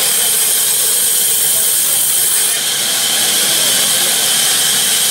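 Large sawmill band saw running, a loud, steady high-pitched hiss and whine.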